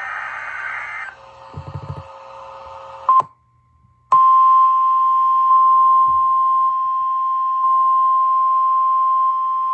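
Emergency Alert System warning signals. A harsh, buzzing digital data burst (the coded header) cuts off about three seconds in. After a second of silence, the long single-pitch NOAA Weather Radio alert tone starts, loud and steady.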